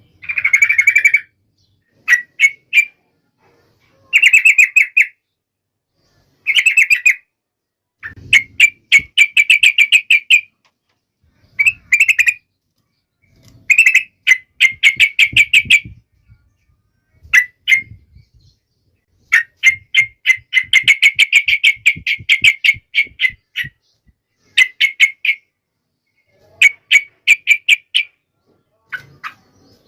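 Yellow-vented bulbul (trucukan) in full song: short phrases of rapid repeated notes at one pitch, one after another with brief silent pauses between them.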